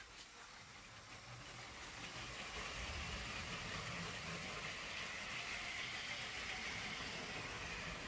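Lego toy trains running on plastic track, the 7897 passenger train among them: a steady running noise that grows louder about two seconds in as a train comes close.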